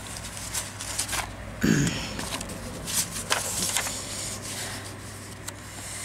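Paper being handled on a craft table: scattered rustles, light scrapes and small taps, with a brief murmur of voice just under two seconds in and a steady low hum underneath.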